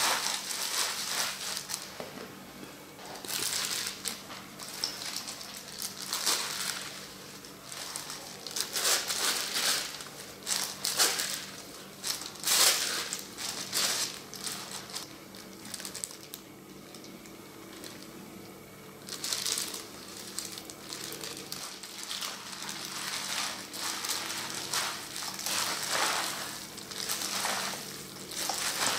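Plastic-gloved hands mixing noodles, lettuce and vegetables in a stainless steel bowl: irregular bouts of rustling, crinkling and wet squishing with quieter stretches between, over a faint steady hum.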